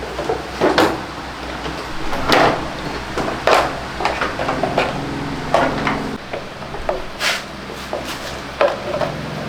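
A series of sharp knocks and clatters from tools and parts being handled during scooter repair, about one every one to two seconds, with smaller clicks between, over a steady low hum.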